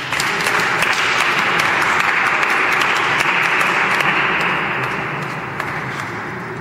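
Audience applauding, a dense patter of clapping that starts abruptly, holds strong for about four seconds, then dies away.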